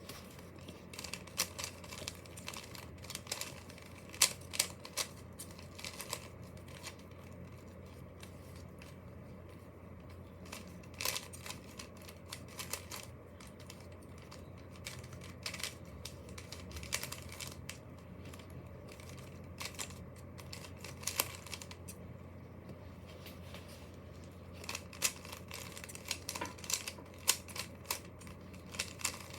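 Plastic Rubik's cube being turned by hand, its layers clicking and rattling in irregular runs of quick clicks, over a faint steady low hum.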